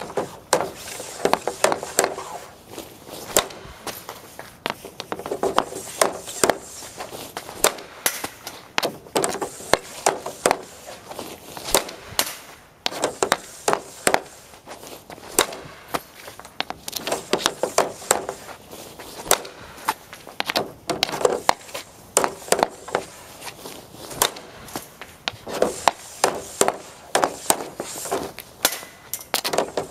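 Repeated hockey slap shots on ice: the composite Easton Stealth RS stick's blade slapping the ice and cracking into the pucks. The sharp hits come in clusters every few seconds.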